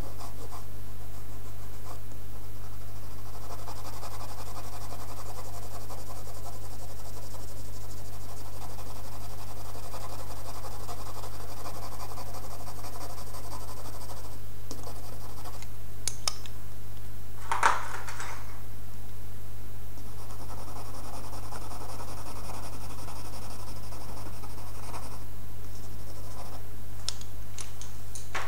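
Coloured pencil scratching on drawing paper as it shades, in two long spells with a pause between them. A single sharp tap comes about two-thirds of the way through, over a steady low hum.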